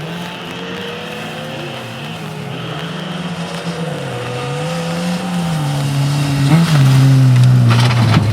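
Fiat Cinquecento rally car engine revving hard, its pitch climbing and dropping repeatedly through gear changes and lifts. It grows louder and is loudest in the last couple of seconds.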